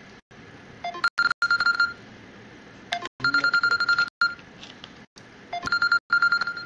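Mobile phone ringtone for an incoming call: three trilling electronic rings, each about a second long and about two and a half seconds apart.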